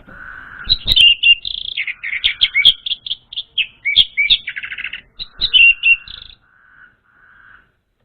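Orange-headed thrush singing a fast, varied phrase of whistles, trills and sharp chattering notes, which stops about six seconds in. A faint buzzy hum runs underneath and fades out a little later.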